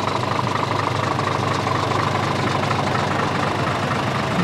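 Scania truck's engine idling steadily: an even low rumble with a higher whine over it that fades about halfway through.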